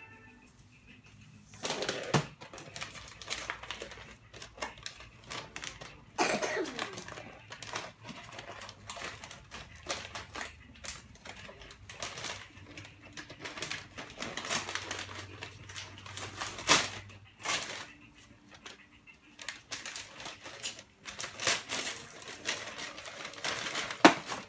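Paper gift wrapping being handled and pulled open, crinkling and rustling in irregular bursts from about two seconds in.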